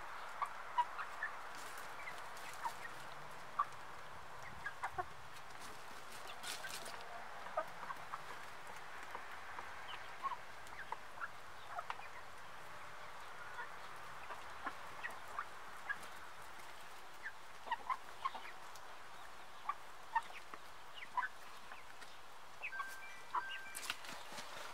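A flock of brown hens clucking quietly while they peck at scattered grain, with many short, sharp ticks and blips scattered throughout.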